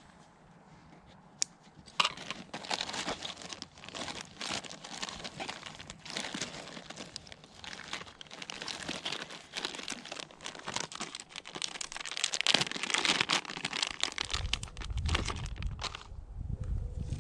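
Close, continuous crinkling and rustling with many small sharp crackles, starting about two seconds in. A low rumble joins near the end.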